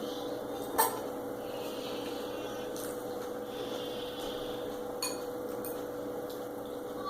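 Eating utensil clinking against a plate: one sharp clink a little under a second in and a fainter one about five seconds in, over a steady hum.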